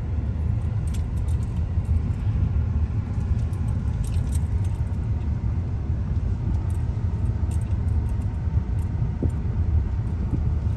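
Road noise heard inside a moving car's cabin: a steady low rumble of engine and tyres, with a few light rattles and clicks.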